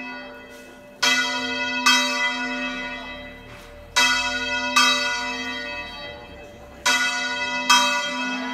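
A church tower bell being swung full circle by hand (manual revolteig). The clapper strikes in pairs, six strokes in all, and each stroke rings on and fades before the next pair.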